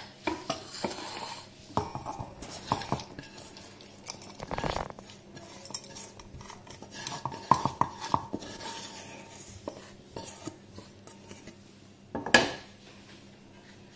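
Metal spoon and steel kitchen vessels clinking and scraping as cooled spice masala is moved into a mixer-grinder jar, with a run of short ringing taps and one louder knock near the end.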